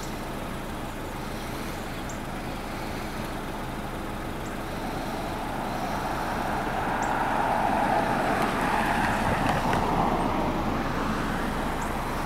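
Road traffic: a passing vehicle's tyre and engine noise swells about halfway through and fades toward the end, over a steady traffic hum.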